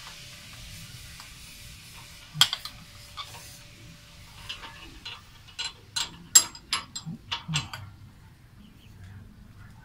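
Steel wrench clicking and clinking against the top cap of a motorcycle's telescopic front fork as the cap is worked loose: one sharp click about two and a half seconds in, then a quick run of metal clicks a few seconds later.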